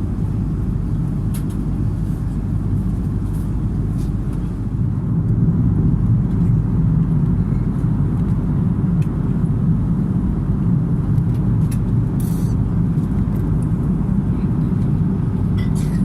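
Steady low rumble of airliner cabin noise aboard an Airbus A330-300, growing a little louder about five seconds in, with a few faint ticks.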